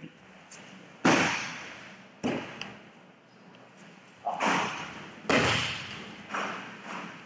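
Aikido breakfalls: bodies landing on the dojo mats, a series of about six sharp thuds, each trailing off with a short echo. The loudest is about a second in.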